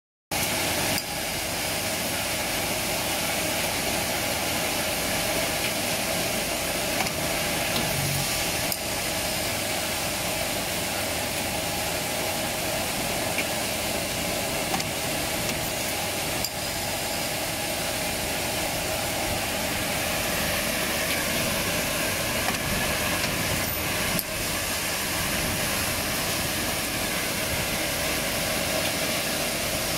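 Coil nail welding machine running steadily: a constant mechanical noise with a few faint clicks.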